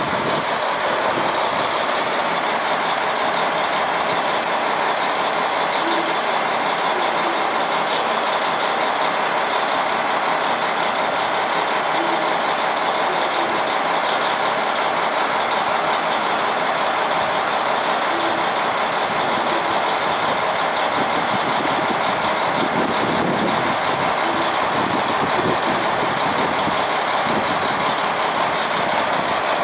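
KiHa 40 diesel railcars idling at a standstill, a steady engine hum with no change in level.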